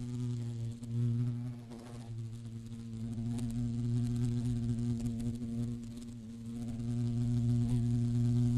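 Honeybee buzzing: a steady low drone that swells and fades slightly in loudness.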